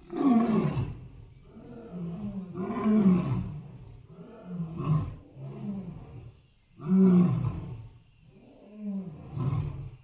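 Elephants giving a series of low, roaring calls, one every second or two. The loudest come near the start, about three seconds in and about seven seconds in.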